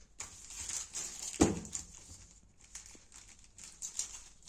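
Packaging being handled and opened, crinkling and rustling irregularly, with one sharp knock about a second and a half in.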